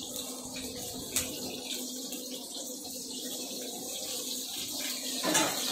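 Commercial LPG wok burners running under the woks, a steady rushing hiss with a faint hum, and a single sharp tick about a second in.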